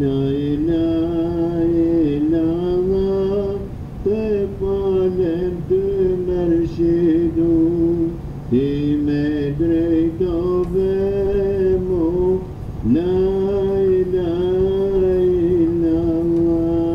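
A solo voice singing an ilahi, a devotional hymn, in long held, wavering phrases over a steady low drone. Each of the four phrases opens with an upward swoop, with a short break between them.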